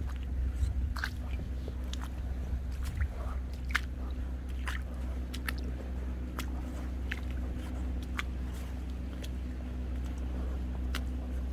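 Footsteps and stones on a wet, rocky tidal flat: scattered sharp clicks and wet squelches, irregular, about one or two a second, over a steady low hum.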